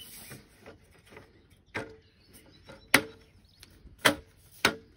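Slatted aluminium top of a Trail folding camping table knocking and clicking into place on its frame as its end clips are pressed into the holes: four sharp knocks a second or so apart, the loudest two in the middle.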